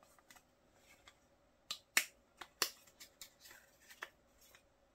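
A few sharp clicks and taps of hard plastic as a clear photo holder is handled and fitted onto its stand base, the loudest about two seconds in, with fainter ticks between.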